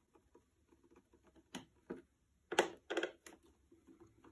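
Small clicks and taps of hands and screws against the plastic base of a Philips Fidelio E5 satellite speaker as its four bottom screws are taken out, with a few sharper clicks in the second half.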